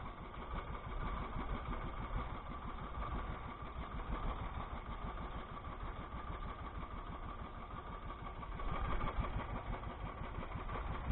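Small outrigger boat's engine running steadily under way, with an even, fast pulsing drone.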